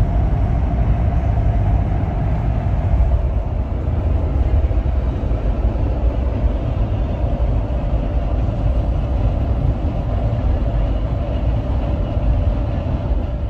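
Steady road and engine noise inside the cabin of a moving Jeep Wrangler: a loud low rumble with a faint steady hum above it.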